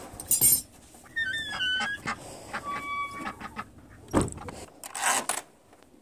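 Water sloshing and splashing in a rubber pan as it is lifted by its wire handle, in two hissing bursts, with short high squeaks between them and a low thump a little past four seconds.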